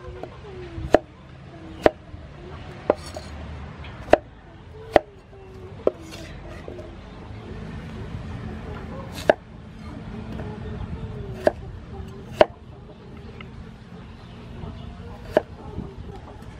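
Cleaver chopping radish and then potato on a thick round wooden chopping block: single sharp knocks, about one a second at first, then further apart.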